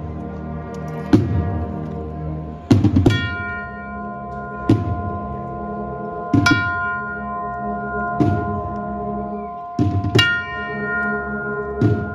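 Brass-and-drum band playing a slow march: heavy drum strokes about every second and a half under held brass notes.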